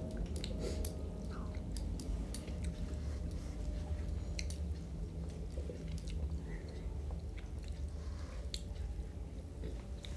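Close-up eating sounds of people chewing rice and fish curry: soft wet chewing with scattered mouth clicks and smacks, over a steady low hum.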